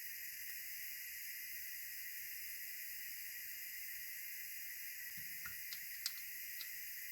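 Steady, even hiss, with a few faint light clicks about five and six seconds in.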